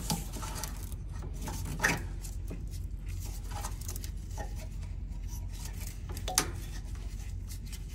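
A plastic wiring-harness connector being handled and unplugged: a few sharp clicks and rattles, the loudest about two seconds in and another near the end, with light scraping between, over a steady low hum.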